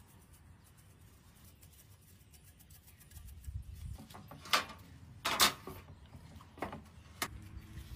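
Gloved hands handling a raw spatchcocked chicken on a wire rack in a metal sheet pan as it is rubbed with seasoning and turned over: faint at first, then a few short rubbing and scraping noises over a low rumble, the loudest about five and a half seconds in.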